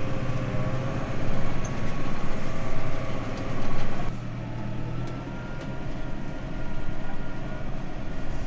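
Tractor engine running, heard from inside the cab. About four seconds in, the sound changes to a quieter steady hum with a faint high whine.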